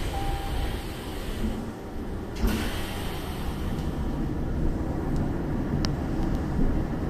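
Shizuoka Railway commuter train car standing at a platform with a steady low hum, its doors sliding shut with a thud about two and a half seconds in. A faint sharp click follows near the end.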